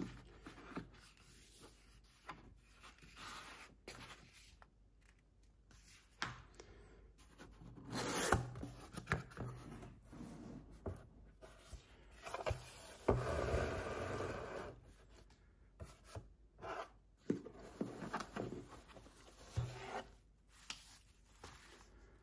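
Packaging being handled during a bike unboxing: irregular rubbing and scraping of cardboard and wrapping, with a louder, longer scrape about two thirds of the way through.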